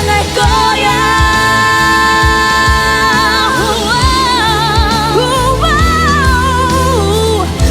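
Korean pop song with a singer holding one long note, then a wavering vocal run, over bass and drums with a steady beat.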